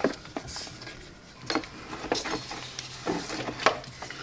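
An old serpentine belt being pulled and wriggled out of an engine bay by hand: irregular scuffs, slaps and light knocks as it is worked past hoses and pulleys, the sharpest knock near the end.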